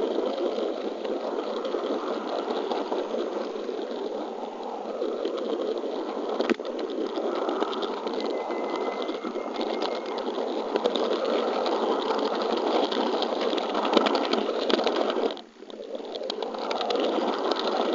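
N-scale model train rolling along the track, heard from a camera riding on the train: a steady rattling whir of wheels and motor on the rails. There is one sharp click about six and a half seconds in, and the sound briefly drops away about fifteen and a half seconds in.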